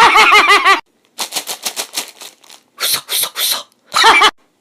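A person's voice making mouth sound effects, imitating object sounds. It opens with a quick run of voiced syllables, then a fast rattle of clicks, then three or four sharp noisy bursts and a short voiced sound near the end.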